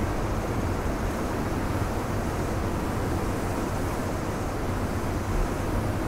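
Ocean surf breaking and washing in among rocks on the shore: a steady rumble with a hiss of foam over it.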